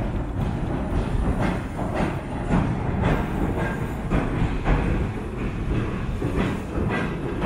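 Train crossing a steel railway bridge: a loud, steady rumble with wheels clacking over rail joints about twice a second.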